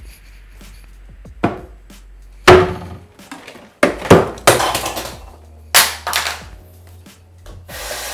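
A string of loud, irregular knocks and clatters of hard objects being handled and set down, then near the end a steady rushing noise begins and keeps going.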